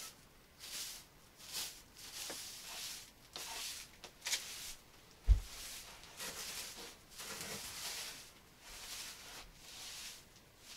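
Straw broom sweeping a cabin floor: short swishing strokes at about one a second. A sharp knock comes about four seconds in, and a heavy thump just after it is the loudest sound.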